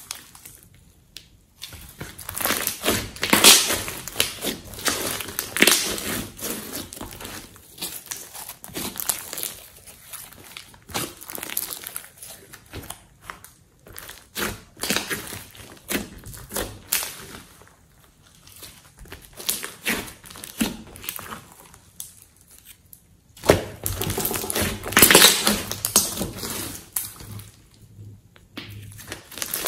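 Hands squeezing, folding and stretching a large lump of clay slime: sticky squelches with crackling clicks, in irregular bursts, loudest for a few seconds near the end.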